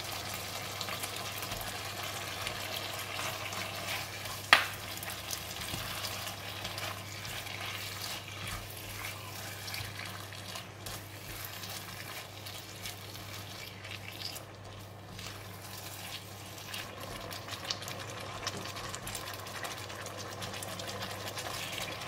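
Raw beef slices sizzling in red curry sauce with Thai eggplants in a non-stick wok, stirred with a plastic spatula. One sharp knock about four and a half seconds in.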